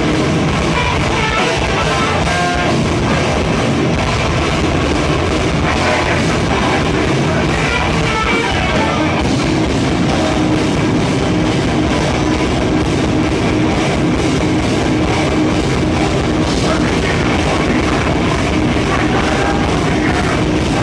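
Live rock band playing loud and without a break, guitars and drum kit filling the sound.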